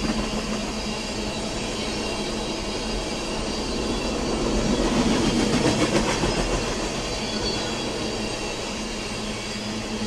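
Freight train of oil tank cars rolling past, a steady rumble of steel wheels on rail with some clickety-clack, swelling louder about halfway through.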